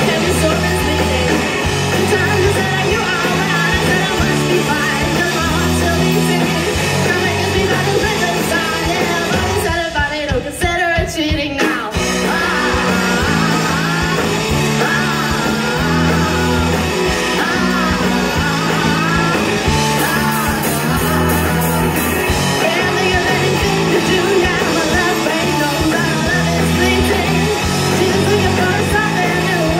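Live rock band playing: a girl's lead vocal over electric guitars, bass guitar and a drum kit, amplified through a stage PA. About ten seconds in the bass and drums drop out briefly before the full band comes back in.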